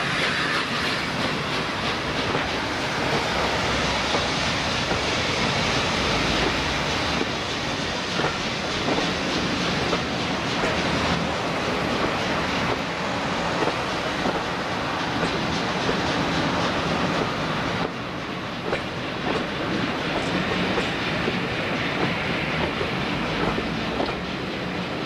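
Passenger coaches of a train rolling past close by, the steady run of their wheels on the rails easing slightly toward the end as the last coach goes by.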